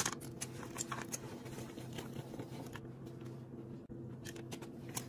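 Hand-cranked rotary drum cheese grater shredding a block of cheese: faint, irregular scraping and clicking of the cheese against the turning drum, over a low steady hum.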